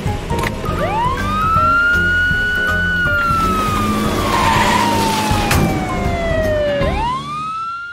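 Cartoon police car siren switched on with a click: a single wailing tone rises about a second in, falls slowly over several seconds, then rises again near the end, over background music.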